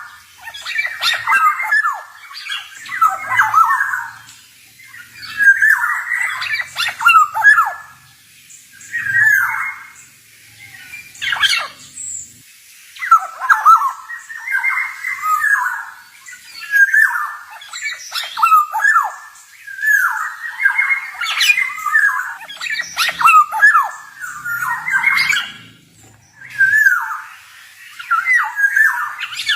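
Male black-naped oriole (kepodang) singing: about a dozen scratchy, warbling phrases of a second or two each, with short pauses between them.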